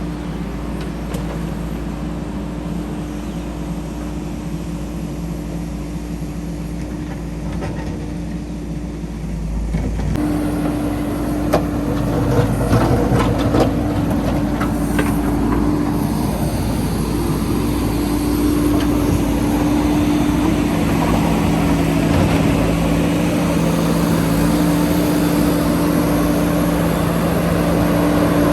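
JCB 3DX backhoe loader's diesel engine running steadily, getting louder about ten seconds in, with a few knocks soon after.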